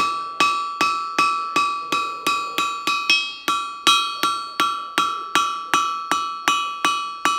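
Hand hammer striking a flat piece of red-hot carbon steel on an anvil to round its edge, in a steady rhythm of just under three blows a second. Each blow leaves the anvil ringing.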